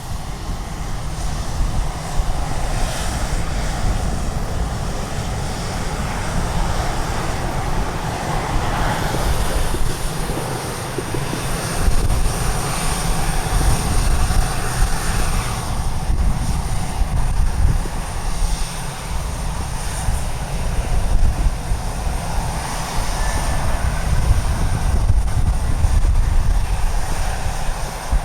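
Jet aircraft engine noise at an airport, swelling and fading, with strong wind gusting on the microphone as an uneven low rumble.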